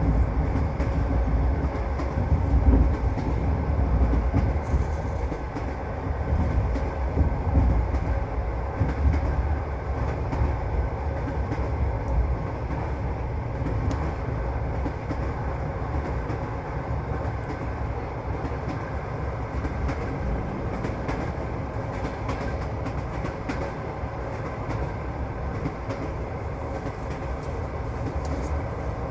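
Passenger train running along the line, heard from inside a carriage: a steady low rumble of the wheels on the rails with scattered clicks and clacks over the track, a little louder in the first few seconds.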